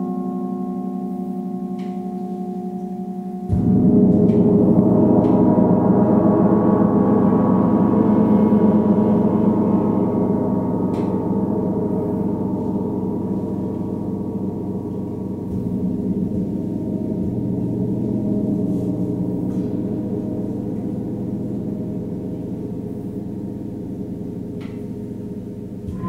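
Large suspended gongs ringing. One is struck hard about three and a half seconds in, and its dense, wavering ring swells and slowly fades, with a smaller swell a little past the middle.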